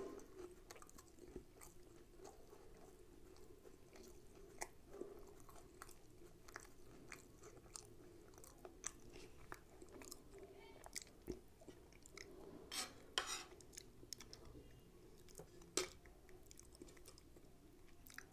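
Faint chewing of food eaten by hand, with scattered small mouth clicks and a few louder clicks.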